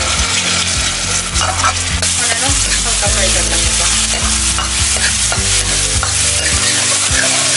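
Grated garlic sizzling in hot oil in a stainless steel kadhai, with a steel ladle stirring and scraping against the pan in scattered clinks.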